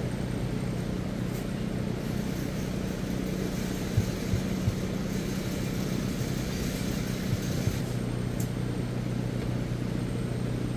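Steady low machine hum, with a few dull thumps about four seconds in and once more later as a large truck tire is pushed and worked down onto its steel rim by hand.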